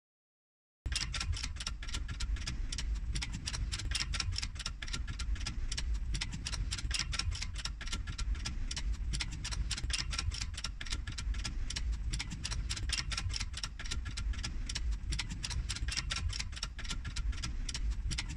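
Shop press bending a square steel bar: rapid, steady clicking over a low rumble, starting abruptly about a second in.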